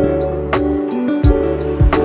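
Background music with sustained notes and bass over a steady beat.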